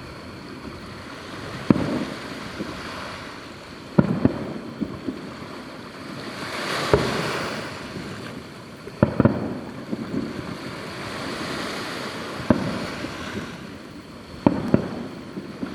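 Aerial fireworks shells bursting: about seven sharp booms a couple of seconds apart, each trailing off in a rolling rumble, with a swelling hiss and crackle in the middle.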